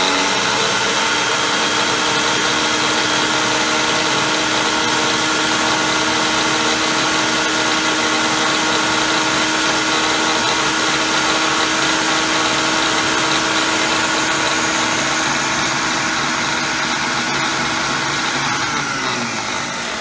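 Ninja countertop blender running at full speed, grinding a cup of oatmeal into oat flour: a loud, steady motor whir with a strong hum, easing off slightly near the end.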